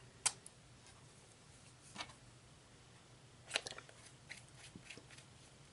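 A few faint clicks and taps from a plastic glue bottle and paper being handled on a tabletop. There is a sharp click just after the start, a softer one about two seconds in, and a small cluster of light ticks about halfway through.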